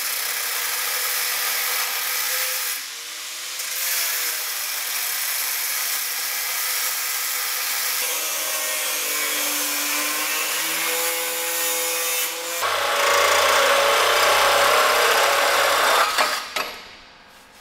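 Angle grinder cutting through the steel engine mounts of a chassis, its pitch sagging and recovering as it bites. About twelve seconds in a second, louder power tool takes over with a low hum underneath, and it stops suddenly about four seconds later.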